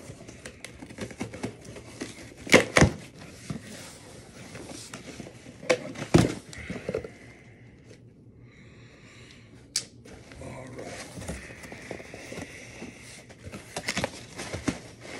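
A cardboard shipping box being opened by hand: packing tape slit and pulled loose and the flaps scraped and bent open, with scratchy tearing and rustling. Sharp knocks against the box come about two and a half seconds in, around six seconds in and around ten seconds in.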